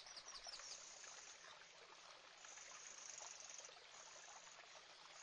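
Near silence: a faint nature-ambience bed with a faint high-pitched insect-like chirring that comes and goes in stretches of about a second.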